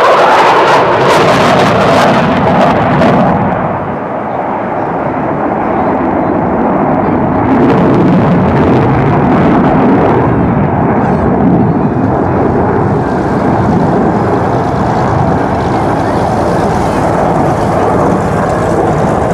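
An F-15E Strike Eagle's twin afterburning jet engines, loud, as it banks overhead with afterburners lit, crackling for the first three seconds. The noise dips briefly about four seconds in, then continues steady as the jet crosses the field.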